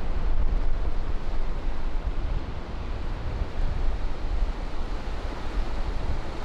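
Ocean surf breaking and washing up a sandy beach, a steady rushing, with wind rumbling on the microphone.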